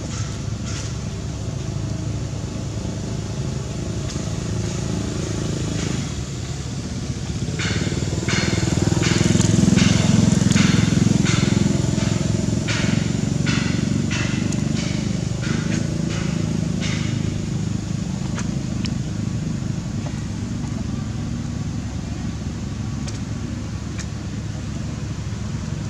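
A motor engine running steadily, growing louder about ten seconds in and then fading away. Across the middle of the stretch comes a run of short, sharp sounds, roughly one and a half a second.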